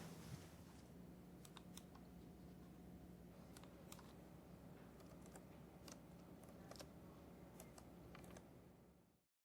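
Near silence: room tone with a steady low hum and a handful of faint, scattered clicks. It fades out near the end.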